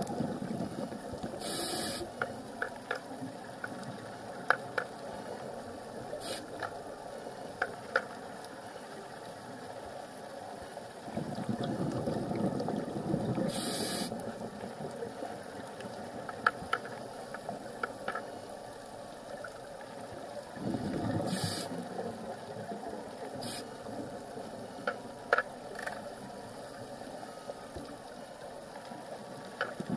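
Scuba diver breathing through a regulator underwater: three louder bubbling rushes of exhaled air roughly ten seconds apart, each with a short sharp hiss of the regulator. Scattered faint clicks and a steady watery hiss run between the breaths.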